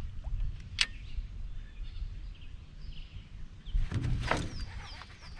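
Outdoor ambience on the water: a steady low rumble of wind on the microphone, with birds chirping in short falling notes near the end. A sharp click comes about a second in and a knock around four seconds.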